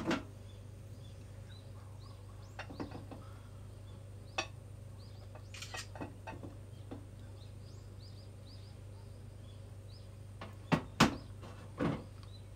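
Scattered knocks and clinks of kitchen utensils and dishes being handled over a steady low hum, with two sharp knocks near the end the loudest. Faint bird chirps come through in the background.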